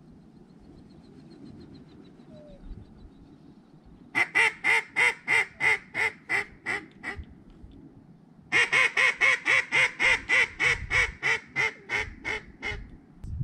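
Mallard duck call blown in two long strings of loud hen quacks, about four a second: a hail call to ducks circling overhead. The first string starts about four seconds in and fades as it goes; the second starts about halfway through.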